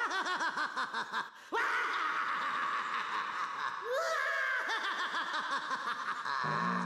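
Daffy Duck's cartoon villain laugh: a quick run of short "ha-ha" bursts, then long, loud, drawn-out cackles. A low musical note comes in near the end.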